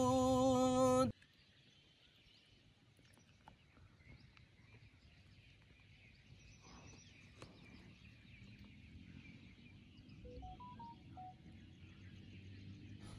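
A man's chanted naat recitation ends abruptly about a second in. After that there is only faint outdoor ambience, with a short run of stepped tones, rising then falling, about ten seconds in.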